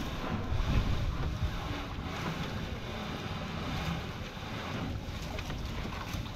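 Wind buffeting the microphone over the slosh of sea water around a small outrigger fishing boat, with a few faint crackles near the end.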